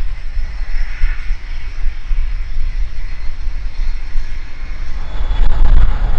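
Airplane engine running, a steady rumble that grows louder about five seconds in.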